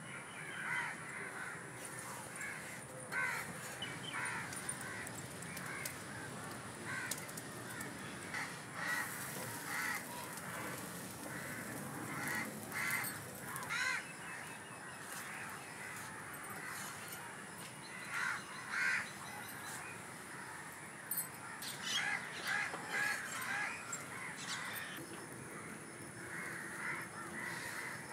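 Birds calling in repeated short calls over a steady low background, the calls coming in clusters, most densely about ten to fourteen seconds in and again in the last third.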